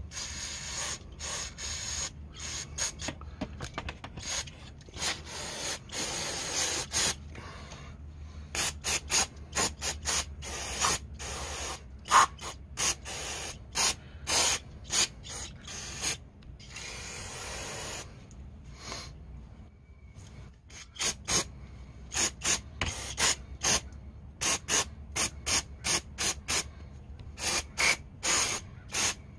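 Aerosol can sprayed through its straw onto a rear brake caliper bracket, to clean the pad slide areas: a couple of longer hisses and many short spurts, in places two or three a second.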